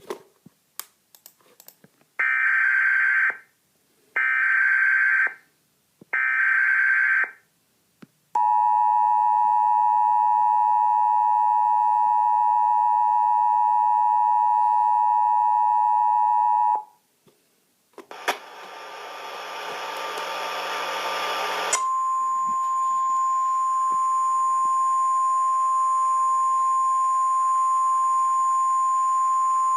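Emergency Alert System tornado-warning tones: three screeching digital header bursts of about a second each, then the eight-second two-tone attention signal. After a short gap comes a few seconds of hiss, then a single steady alert tone that holds on.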